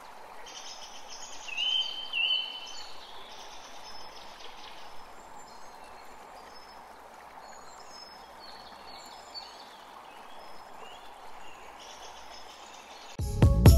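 Nature ambience of steady running water with small birds chirping now and then, two louder chirps about two seconds in. Loud music cuts in abruptly just before the end.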